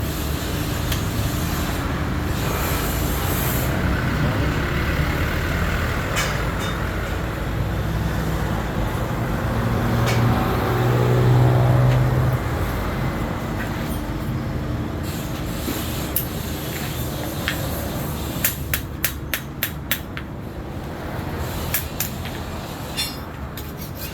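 Steady road traffic rumble, with a heavy vehicle's engine swelling past about ten seconds in. Later comes a quick run of sharp knocks, about three a second.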